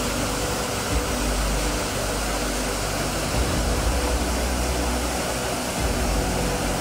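Floodwater rushing over a weir and gushing through open dam spillway gates: a steady, heavy noise of churning water.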